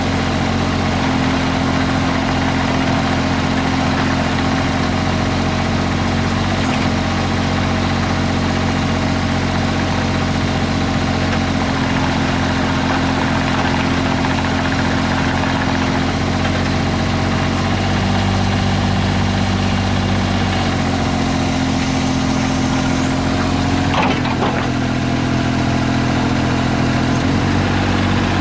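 Mitsubishi MM20CR mini excavator's diesel engine running steadily, its note stepping up and down several times in the second half, with a couple of brief knocks.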